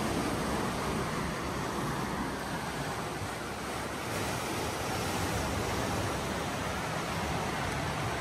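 Sea waves washing in: a steady rush of surf.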